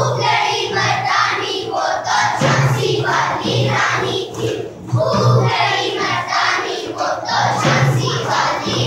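A group of young children singing and shouting together over recorded music.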